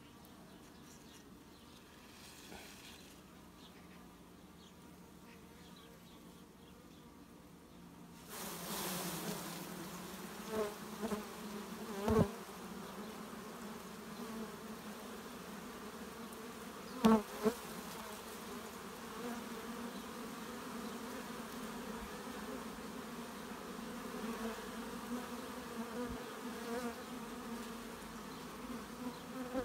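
Swarm of Carpathian honey bees buzzing over an opened hive, faint at first and then swelling suddenly about eight seconds in into a loud, steady drone. Two sharp knocks come through the buzzing, about four and nine seconds after the swell.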